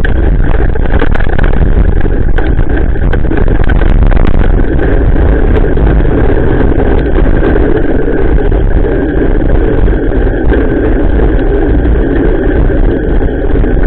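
Steady, loud rumble of a bicycle rolling along a wet asphalt road in the rain, heard through a bike-mounted action camera: tyre noise and wind buffeting the microphone, with scattered ticks of raindrops on the camera. The rumble grows heavier about four to five seconds in.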